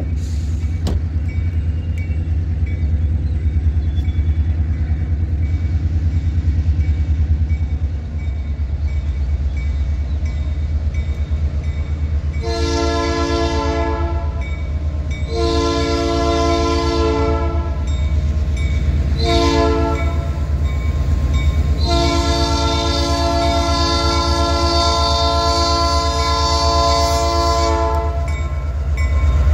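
Norfolk Southern diesel locomotive's air horn sounding the grade-crossing signal: two long blasts, a short one and a final long one, as the train approaches the crossing. A steady low rumble runs underneath.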